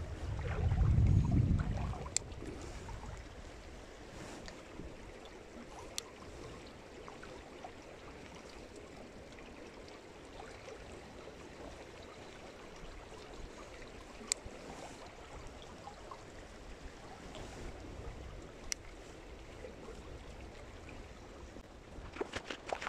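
Faint, steady flowing-water sound at the water's edge, with a few sharp single clicks scattered through it and a loud low rumble about a second in.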